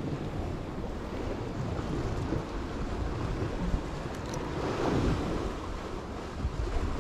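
Sea waves washing against a rocky shore, with wind buffeting the microphone; the surf swells a little about five seconds in.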